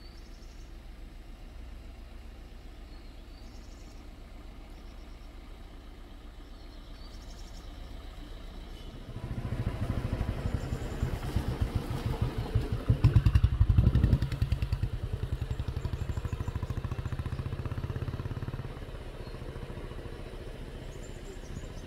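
A motor vehicle's engine running close by. It comes in abruptly after a quiet stretch with a low hum and faint high chirps, is loudest around the middle, and falls away a few seconds before the end.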